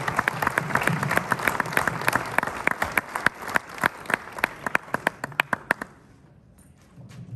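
Audience applauding: dense clapping from many hands that thins out after about three seconds and dies away about six seconds in, leaving a few scattered claps.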